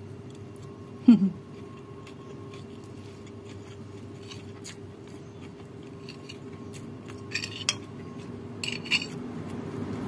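Metal spoon scraping and clinking against a ceramic plate a few times in the second half, as rice and fried egg are scooped up to eat. About a second in there is a short voiced 'mm', the loudest sound, over a steady low background hum.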